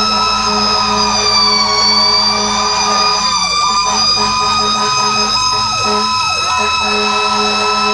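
Fire engine sirens sounding continuously while the truck drives, heard from the cab. One steady high siren tone dips slightly about two seconds in and comes back up. Under it a second siren sweeps up and down quickly and repeatedly.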